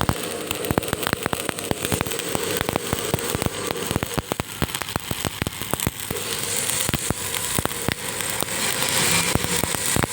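Stick-welding arc crackling steadily, a dense irregular stream of sharp pops and spatter.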